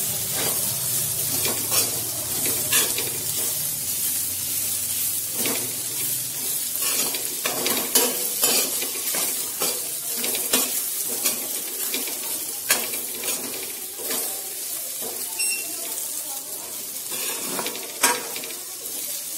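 Sliced ivy gourd (tindora) sizzling in a metal kadai while a spatula stirs it through a ground spice powder, with irregular clicks and scrapes of the spatula against the pan over a steady sizzle.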